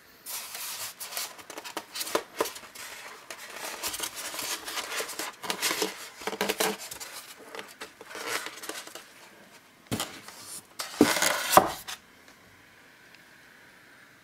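Styrofoam packaging being handled and pulled apart, with foam rubbing and scraping on foam and a plastic wrapping sheet rustling, in irregular bursts. The loudest handling comes just before it stops, about twelve seconds in, leaving a faint hiss.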